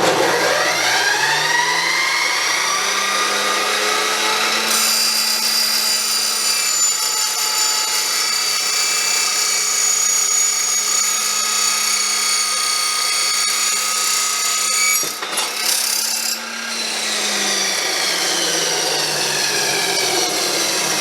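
Chop saw with a Diablo Steel Demon metal-cutting blade, running at reduced speed through a fan speed controller, spinning up and then cutting steel. The cut brings a high, steady ringing for about ten seconds. After the cut the motor winds down, its pitch falling.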